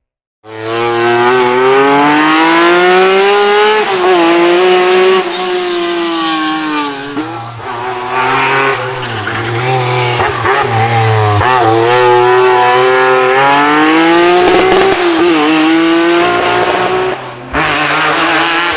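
Race car engine at high revs, its pitch climbing and then dropping sharply several times as it shifts up through the gears.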